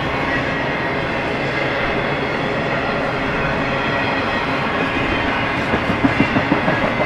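Intermodal freight train's cars rolling past, a steady rumble of steel wheels on rail. About six seconds in comes a quick run of six or seven clacks.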